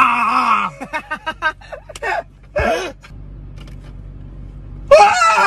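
Young men making loud, silly nonsense vocal noises: a long falling groan at the start, then a run of short laughs, and a second long wavering wail near the end.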